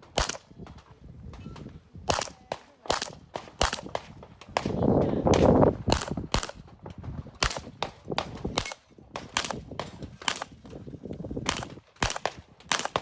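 Handgun fired in a rapid practical-shooting string, the shots mostly coming in quick pairs (double taps) about a fifth of a second apart, with short pauses between the pairs. A louder stretch of rushing noise comes around five seconds in.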